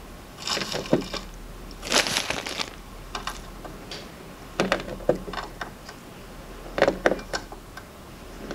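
LEGO Art 1x1 round plastic tiles being picked up and pressed onto a studded baseplate, making short clusters of sharp plastic clicks and light rattles, about five clusters a second or so apart.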